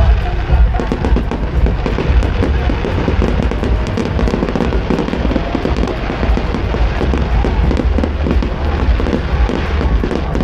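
Aerial fireworks going off in a dense barrage: continuous rapid crackling from glittering gold bursts over steady low booms.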